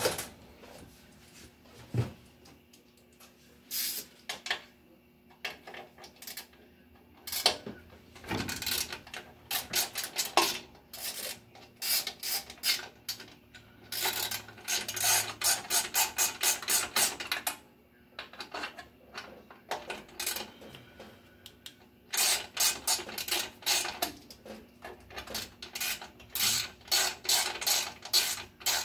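Ratchet wrench clicking in several runs of fast, even clicks, with short pauses between runs, over a faint steady hum.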